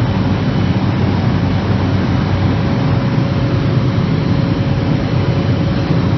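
Cessna 208B Caravan's turboprop engine and propeller running steadily, heard inside the cockpit, with a faint steady whine over the noise.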